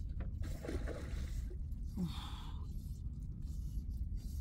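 Wind rumbling steadily on the microphone over open water, with a short breathy sound about two seconds in.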